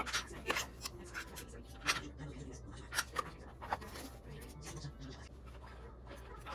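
A metal measuring spoon clinking and tapping against a stainless steel mixing bowl, with cardboard ingredient boxes being handled: a handful of sharp taps and light scrapes.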